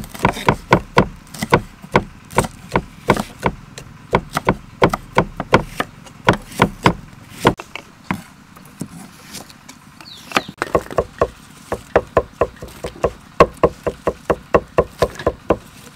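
Knife chopping on a thick wooden chopping block: quick, regular strokes at about three a second, thinning out for a couple of seconds about halfway through before picking up again.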